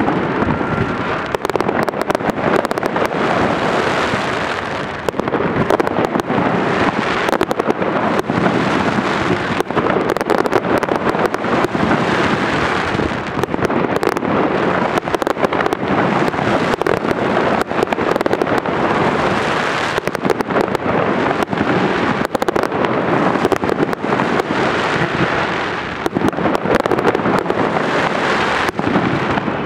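Fireworks salute: a continuous dense barrage of shell bursts and crackling, the bangs overlapping with no pauses.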